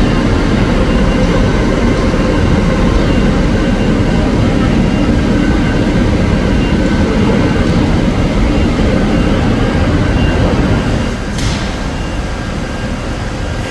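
Hyd-Mech V-20APC vertical band saw running with a steady heavy mechanical rumble; about eleven seconds in it gets quieter and a short hiss sounds.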